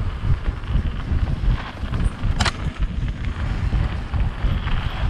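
Wind buffeting the camera microphone over the low rumble of mountain bike tyres rolling fast over a dirt and gravel trail, with one brief sharp click about two and a half seconds in.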